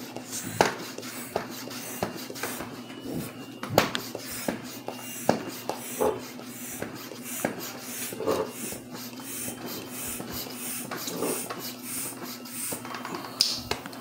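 Bicycle inner tube being pumped up by hand: a run of strokes about every two-thirds of a second, with clicks and handling noise of the tube, over a steady low hum.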